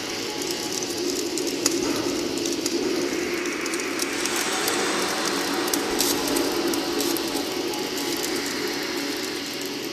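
Campfire burning: wood crackling with frequent short pops and snaps over a steady rushing hiss.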